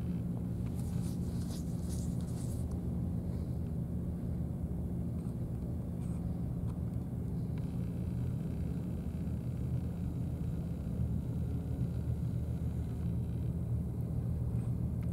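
Steady low droning rumble with a hum, like a distant motor, holding at an even level. Faint high crackles come and go about a second in.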